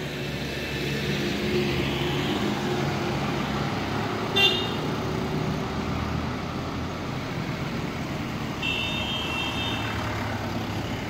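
Road traffic passing on a winding hill road: car, scooter and truck engines running with tyre noise. A vehicle horn gives one short, loud honk about four seconds in and a longer honk lasting over a second near nine seconds.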